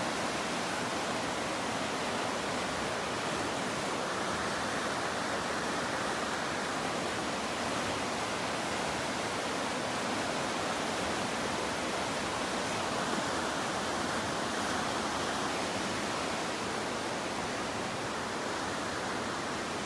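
The Housatonic River running fast over rapids: a steady, unbroken rush of white water.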